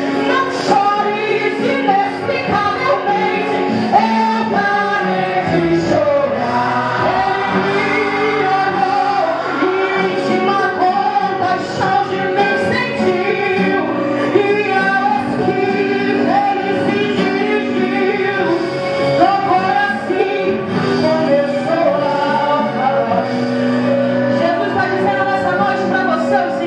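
A girl singing a Portuguese-language gospel song into a microphone with electric guitar accompaniment, sustained and continuous.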